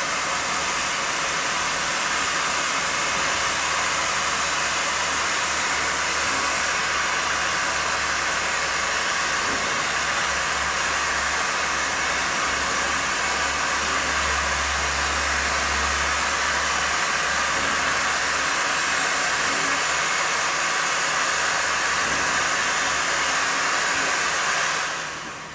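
Steam hissing steadily from the SNCF 241P17 steam locomotive as its boiler is held at pressure, cutting off suddenly near the end.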